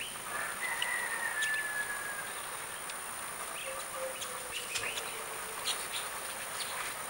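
Steady high insect drone with a faint drawn-out bird-like call, and scattered soft clicks as ripe soursop fruit is pulled apart by hand.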